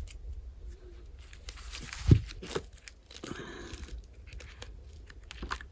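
Books and paper being handled: soft rustling and crinkling, with a low thump about two seconds in.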